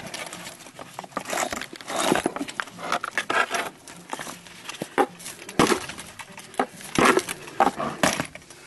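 Irregular handling noises: clicks, knocks and short scrapes of plastic cam-lock caps, plugs and hose fittings being worked loose and set down.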